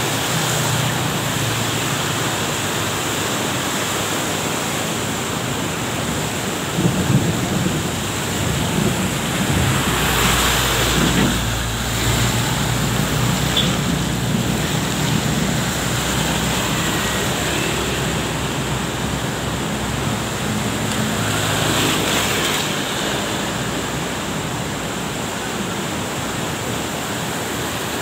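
Steady rush of a flood-swollen river mixed with traffic on a rain-wet road: engines and tyre hiss of passing motorbikes and a truck, with the engine sound heaviest through the middle.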